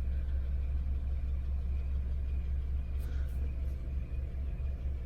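2009 Honda CR-V four-cylinder engine idling with a steady low rumble, a few faint ticks about three seconds in. It is running on a failing alternator, with the electrical system dying and the lights dim.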